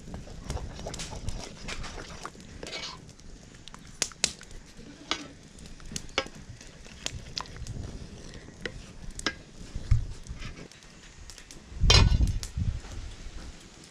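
Wooden spoon stirring porridge in a metal pan, with irregular knocks and scrapes of the spoon against the pan. About twelve seconds in, a lid is set on the pan with a clatter, the loudest sound.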